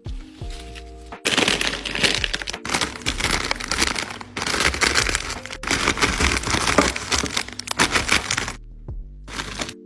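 Doritos tortilla chips being crushed, a loud, dense crunching and crackling of breaking chips and crinkling packet that goes on for several seconds, stops briefly near the end, then starts again.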